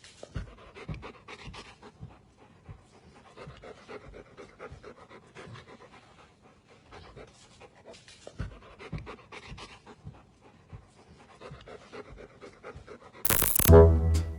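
A dog panting quickly and steadily, about three breaths a second. About thirteen seconds in, loud music with brass cuts in suddenly.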